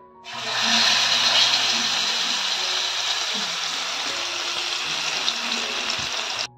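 Whole marinated pearl spot (karimeen) fish sizzling steadily in hot oil in a frying pan. The sizzle starts suddenly as the fish goes into the oil and cuts off abruptly near the end.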